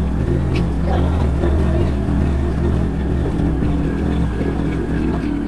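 A motor engine running steadily with a low, even drone.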